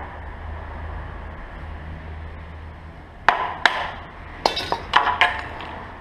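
A blade being driven down into a section of moso bamboo to split it lengthwise: about six sharp knocks and cracks in the second half, the first two a moment apart and the rest close together.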